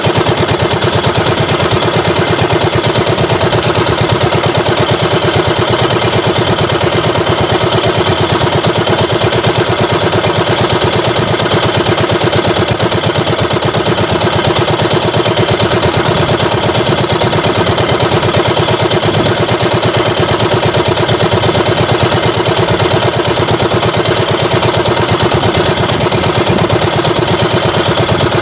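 Small engine of an outrigger fishing boat running steadily and loudly at a constant low speed, with a fast, even firing beat.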